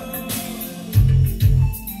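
Music playing: a Lingala gospel song with heavy bass notes and drums, the beat coming in strongly about a second in.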